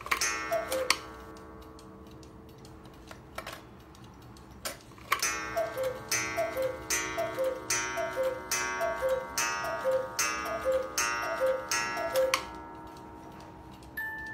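Hones Black Forest chalet cuckoo clock striking the hour. A ringing strike and a single two-note cuckoo call come first, then a few seconds of ticking, then a steady run of two-note cuckoo calls, each with a ringing strike, about one a second. Near the end the clock's music box starts playing a tune.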